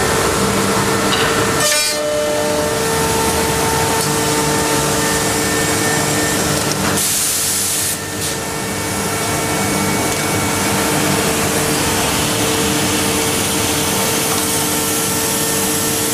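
HOMAG BAZ 32 CNC woodworking machining centre running: dense, steady machine noise with a steady hum, and a short burst of hiss about seven seconds in.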